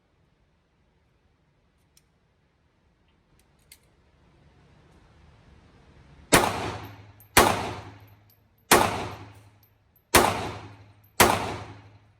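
Five pistol shots fired at an unhurried pace, roughly a second apart, each a sharp crack with a ringing tail. A couple of faint clicks come before the first shot.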